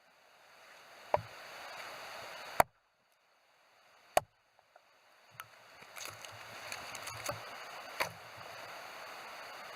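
Axe striking wood four times, sharp single knocks spaced unevenly over a steady hiss, with the sound dropping out briefly at the start and around three seconds in.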